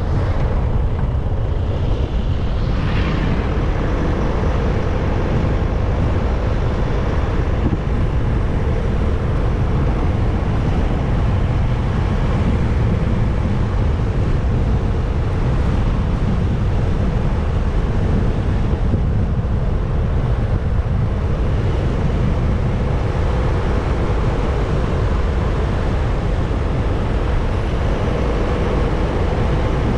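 Steady rush of wind and road noise from a motorcycle underway, with a faint steady hum.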